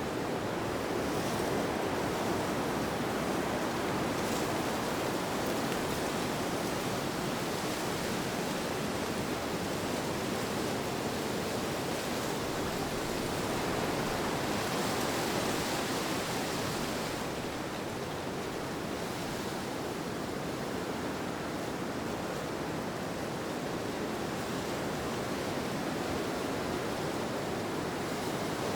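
Steady rushing wind, an even noise bed. It brightens in a gust a little past the middle, then eases back.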